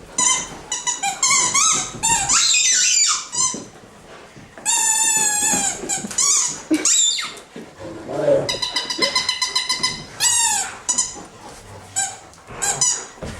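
A Rottweiler chewing a squeaky toy: repeated high squeaks in several bursts. Some are long and wavering, others come as quick runs of short chirps.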